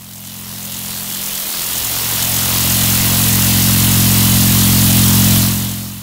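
Cinematic title sound effect: a rushing swell over a steady low drone, building for about five seconds and then fading near the end.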